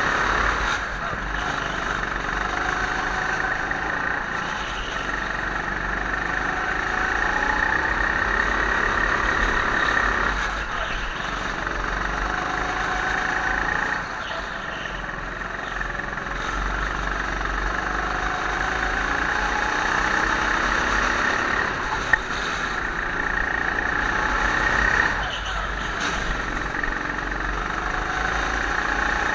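Go-kart engine heard on board, running hard with its pitch rising along the straights and dropping back sharply at each corner, several times.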